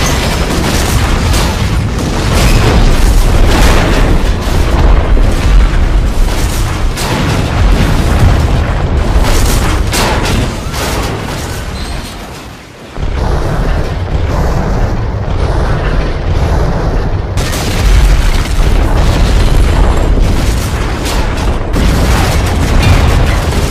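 A rapid run of loud booms and blasts from weapons fire and explosions, with music underneath. It dips briefly about twelve seconds in, then the blasts start again.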